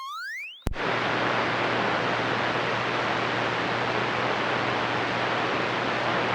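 CB radio receiver hiss, the steady static of the 11-metre band with a faint hum underneath. It opens with a short rising-pitch roger beep while a station's carrier quiets the noise, then the static returns as the station unkeys.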